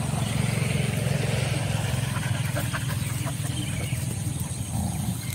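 A steady low motor hum, with faint clicks and scrapes of dogs digging in stony earth.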